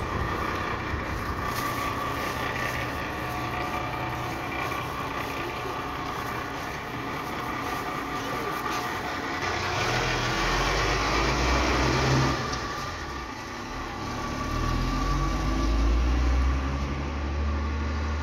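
BAZ A079 minibus engine pulling away and driving off, a low engine hum over street noise that grows louder about ten seconds in, dips briefly, and swells again near the end.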